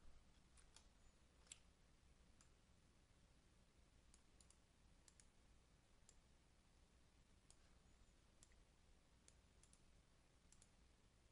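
Faint computer mouse clicks scattered through near silence, several of them in quick pairs.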